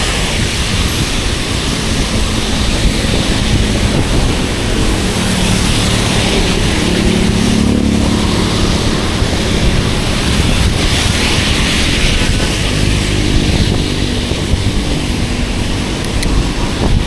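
Steady wind rushing over an action camera's microphone while cycling, mixed with tyre hiss on a wet road in the rain. A low hum swells through the middle of the stretch and fades again.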